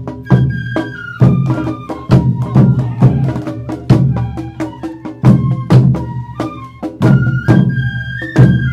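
Awa odori band music: drums and percussion beat a quick, steady rhythm, about two strikes a second, under a bamboo flute's held high notes.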